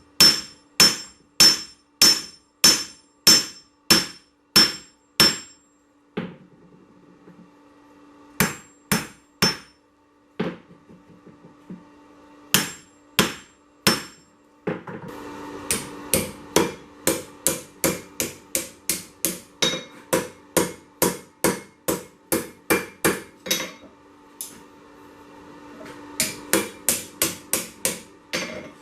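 Hand hammer striking hot 1085 carbon steel on an anvil during rough forging. The blows come in runs of about two a second with short pauses between, and the first run rings clearly. A steady low hum runs underneath.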